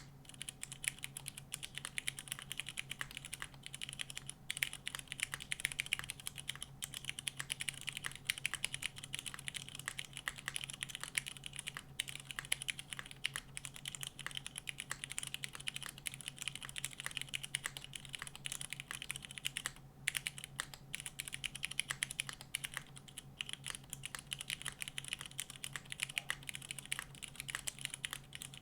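Continuous rapid typing on a mechanical keyboard with unlubed Cherry MX Brown Hyperglide tactile switches on 65 g springs, in an o-ring-mounted aluminium plate with GMK keycaps: a steady stream of keystroke clacks.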